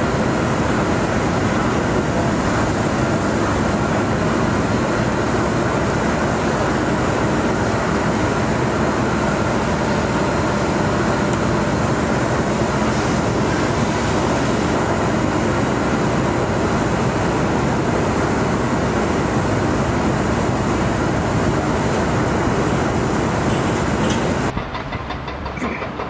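Heavy construction machinery running: a steady, dense mechanical rumble that changes abruptly near the end.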